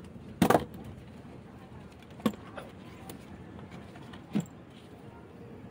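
Sharp knocks and clatters from a CRT TV circuit board being handled and turned over on a table: a loud clatter about half a second in, then single knocks at about two and four seconds.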